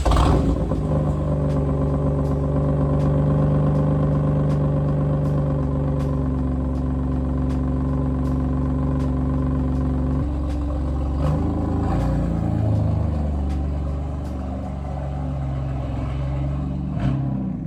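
BMW F80 M3's S55 twin-turbo inline-six starting up and idling through an Active Autowerke single mid pipe (resonator delete) with the exhaust valves held open. It catches with a sudden loud burst, then idles steadily and loudly. About ten seconds in, the note shifts and wavers before settling again.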